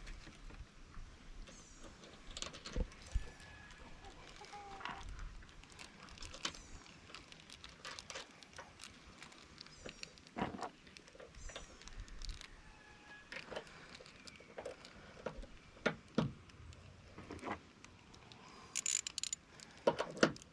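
Scattered small clicks and knocks of hand tools and metal latch hardware being handled and fitted, irregular and fairly quiet, with a few louder knocks about 3, 10 and 16 seconds in.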